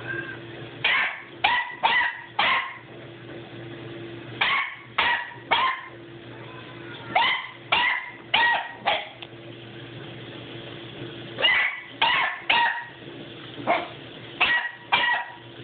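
Beagle puppy barking at a cat: short, high-pitched yips in quick bursts of three or four, with pauses of a second or two between bursts.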